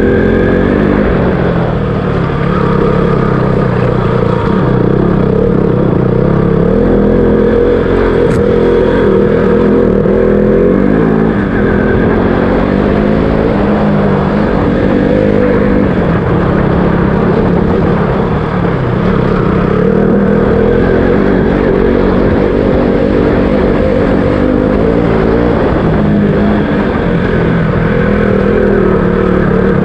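KTM RC 200's single-cylinder four-stroke engine running under way, its pitch rising and falling with the throttle.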